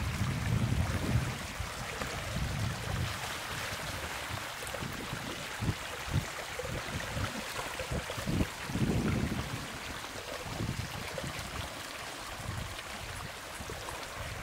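Floodwater running and splashing in a steady hiss, with irregular low rumbles that are heavier in the first few seconds and again about nine seconds in, and a few short knocks around six seconds in.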